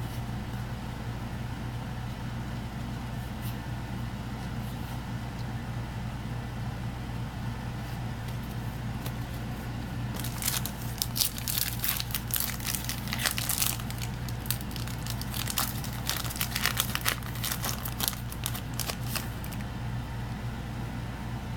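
Foil wrapper of a Yu-Gi-Oh! booster pack crinkling and tearing open: a dense run of crackles starting about halfway through and lasting some nine seconds, over a steady low hum.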